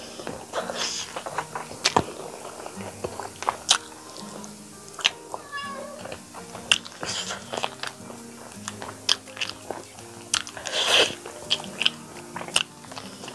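Close-up eating: wet chewing, lip smacks and sharp irregular clicks as chicken curry and rice are bitten and chewed, with a longer slurping burst about eleven seconds in. Soft background music plays under it.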